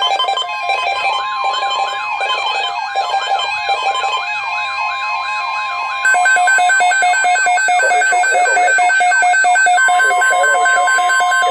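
Emergency alert broadcast tones: several alert signals overlapping, with chopped, dashed data-burst tones of the kind used in alert headers and a steady attention tone. They get louder and denser about six seconds in.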